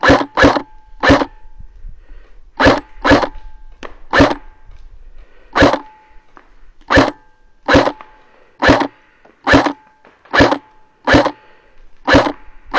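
Airsoft replica rifle firing single shots close to the microphone, about fourteen sharp pops at an uneven pace of roughly one a second.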